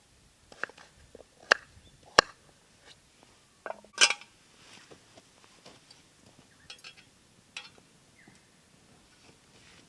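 Scattered light clinks and knocks of camp cookware and utensils being handled, at irregular intervals, with the loudest clatter about four seconds in.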